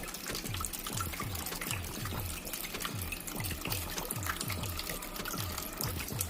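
Water trickling and splashing down a small terracotta-pot tabletop fountain, over background music with a steady bass beat.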